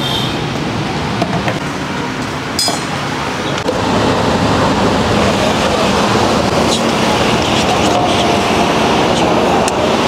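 Steady road traffic noise with a rumble of passing vehicles, getting louder about four seconds in.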